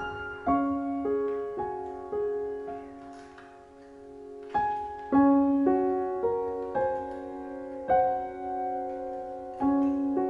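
Slow solo piano background music: single notes and soft chords struck one after another, each left to ring and fade.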